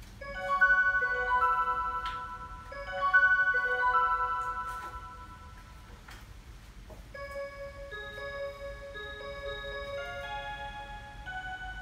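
Seiko Melody in Motion wall clock playing its hourly show: a bell-like chime phrase rings twice, then a quieter melody starts about seven seconds in.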